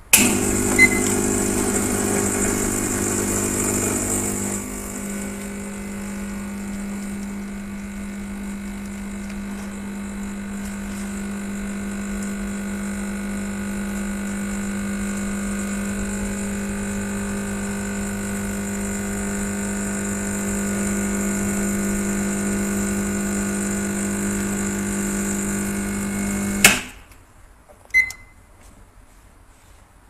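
Semi-automatic espresso machine's pump humming steadily while it pulls shots through both group heads, louder for the first four or five seconds and then settling, before it cuts off sharply after about 27 seconds. A short high beep comes just after it starts and again about a second after it stops.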